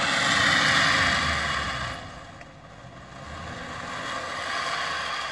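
Off-road vehicle engine revving under load in snow, loud for the first two seconds, easing off, then building again near the end.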